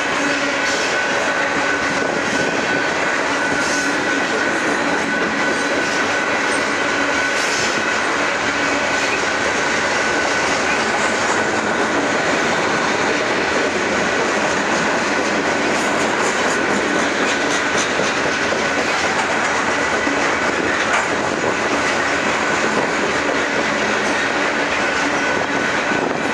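Freight train of covered hopper cars and tank cars rolling past at steady speed: wheels clattering over the rail and couplers rattling, with a steady high-pitched wheel squeal over it.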